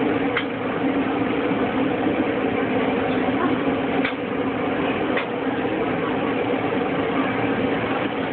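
Steady mechanical hum, like a motor running, with a few faint clicks.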